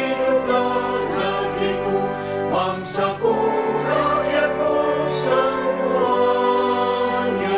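Church choir singing in harmony, holding long notes that move to new chords every second or so.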